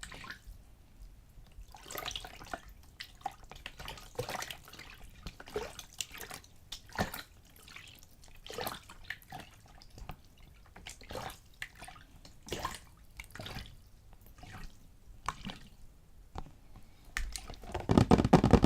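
A little water splashed and sloshed back and forth in a container close to the microphone, in irregular small splashes and drips. Near the end comes a louder, heavier burst of sloshing.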